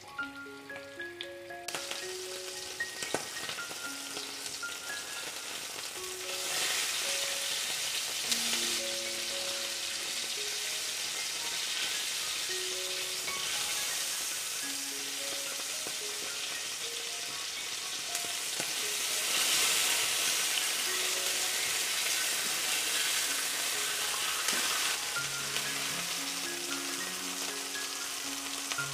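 Chicken breasts sizzling as they fry in butter in a pan, a steady crackling hiss that swells about six seconds in and again around twenty seconds. Soft background music with a simple melody plays over it.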